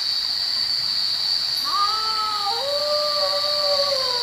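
A long, dog-like animal howl, one call of about three seconds starting a little under two seconds in, rising at first and then sagging slowly in pitch. Under it runs a steady high chirring of crickets.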